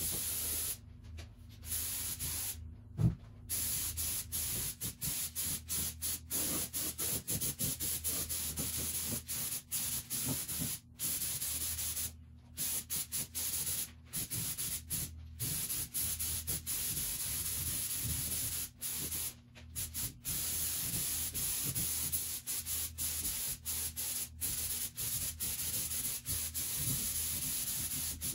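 HVLP paint spray gun hissing as it sprays, the air cutting off and coming back again and again as the trigger is released and pulled between passes. One sharp knock about three seconds in.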